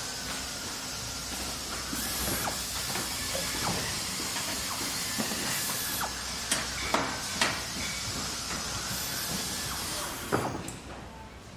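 Steady hissing noise with a few sharp clacks, several in quick succession about halfway through and one more near the end, as plastic toy grabber claws close on a wooden log.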